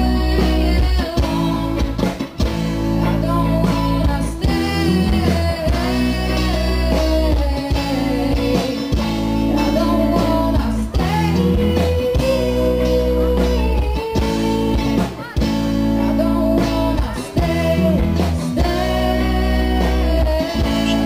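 Rock band playing live: a female singer's sung melody over electric guitar, drums and heavy bass.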